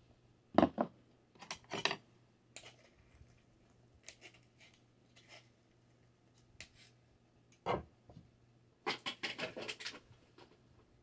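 Metal spoon scraping and tapping against a small metal mesh strainer over a pot, pressing grated cucumber pulp through it, in scattered strokes with a couple of heavier knocks and a quick run of scrapes near the end.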